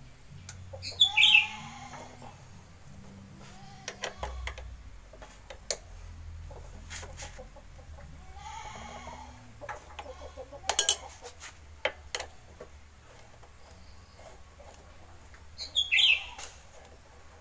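Chickens calling three times, loudest about a second in and near the end, with a few sharp metal clicks of an L-shaped Torx key working the front brake caliper bolt in between.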